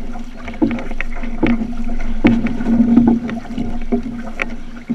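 Outrigger canoe paddles catching and pulling through the water in a steady rhythm, a stroke a little under every second, with water washing along the hull. A steady low hum runs underneath.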